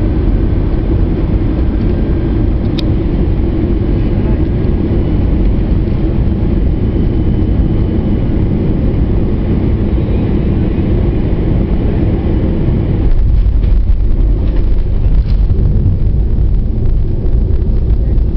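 Cabin noise of an Airbus A321 landing: a steady rumble of jet engines and rushing air on the final approach. About 13 seconds in it changes to a deeper, slightly louder rumble as the airliner touches down and rolls along the runway.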